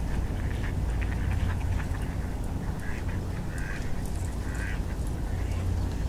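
Ducks calling on a lake: a run of short calls about a second in, then three more spaced out through the middle, over a steady low rumble.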